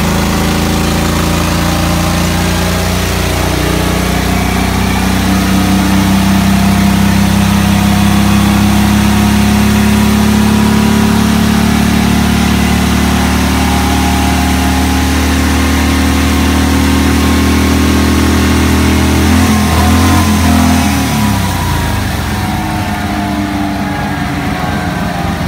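1942 Harley-Davidson WLA's 45 cubic inch flathead V-twin on a dyno pull: the revs climb steadily under load for most of the run. Near the end the throttle shuts and the engine falls back toward idle.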